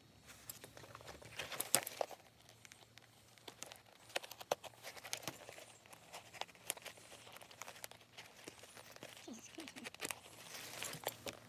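Handling noises from working on a leather backpack by hand: rustling and crinkling with scattered sharp clicks and taps. The loudest rustle comes about two seconds in, and another swell comes near the end.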